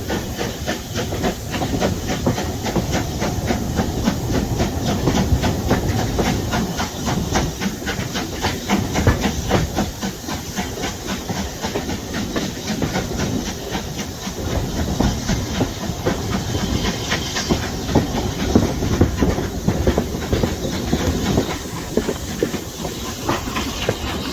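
Steam-hauled passenger train running, heard from aboard: a steady rushing hiss with a fast, even rhythm of beats.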